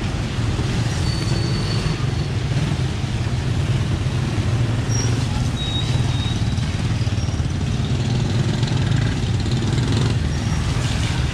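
Steady street traffic: a constant low engine rumble from passing vehicles under an even hiss of rain and wet road, with a few brief high-pitched squeaks.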